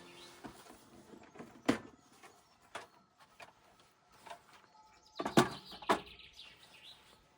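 A few sharp knocks and clatters of things being handled, the loudest a cluster about five to six seconds in, with birds chirping faintly in the background.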